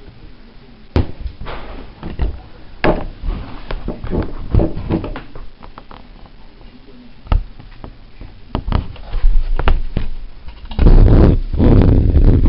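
Irregular taps, knocks and rustling from hands working a needle and thread through taut embroidery fabric, with a louder cluster of thumps and rubbing near the end.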